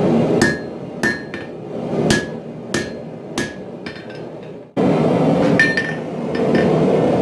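Hand hammer striking steel on an anvil, about a blow every two-thirds of a second, each with a short metallic ring, over a steady low rushing noise. The sound cuts off abruptly about two-thirds of the way in, then two or three more blows follow.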